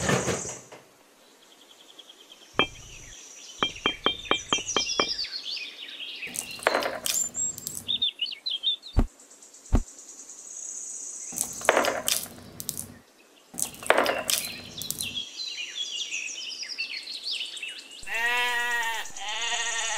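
Birds chirping over background music, with a run of small clicks a few seconds in. Near the end a sheep bleats twice, each bleat wavering.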